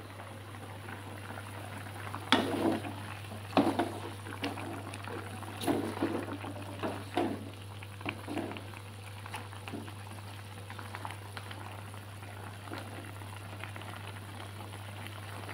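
Chicken simmering in turmeric spice broth in an aluminium pot, bubbling steadily over a low hum. From about two seconds in to about eight seconds in, a run of knocks and clatters, louder than the bubbling, breaks in several times.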